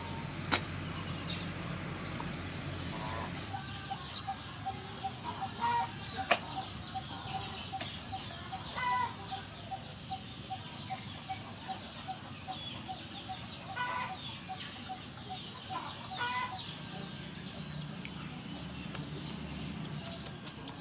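Chickens clucking a few times in the background, with an even run of quick high pips, about four a second, for several seconds. Two sharp knocks stand out, one right at the start and one about six seconds in.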